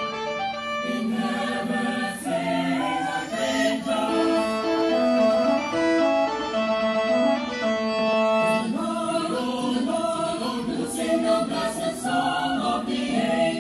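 A choir singing in several parts, with long held notes.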